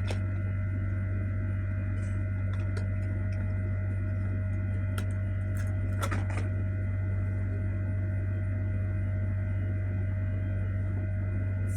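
A steady low electrical hum with fainter steady higher tones above it, and a few light clicks.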